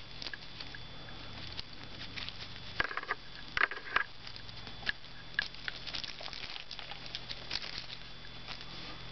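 Light rustling and scattered small clicks of mono earphones and their cord being handled close to the microphone.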